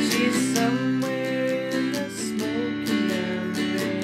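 Taylor electric guitar strumming chords steadily, playing the song's chord accompaniment without vocals.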